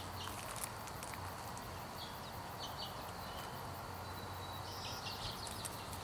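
Quiet outdoor ambience: a faint steady background hiss with a few short, high bird chirps scattered through it.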